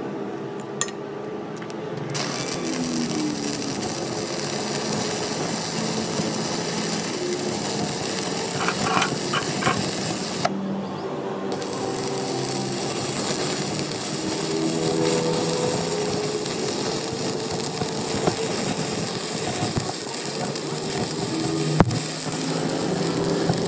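Workshop power tool running on a repair job, a steady hiss with scattered clicks and scraping; the high hiss drops out for about a second around ten seconds in.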